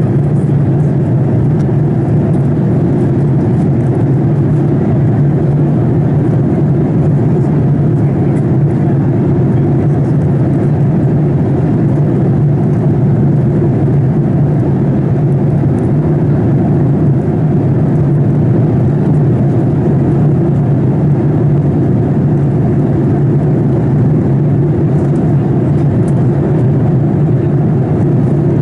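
Steady cabin noise inside a Boeing 787-8 airliner in flight: a constant low drone of the engines and the airflow over the fuselage, with no change in pitch or loudness.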